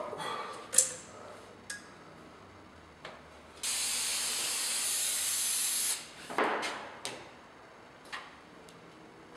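Aerosol can of Trim-Tex 847 spray adhesive hissing in one steady spray lasting about two and a half seconds, midway through. A few short, sharp clicks and knocks come before and after it.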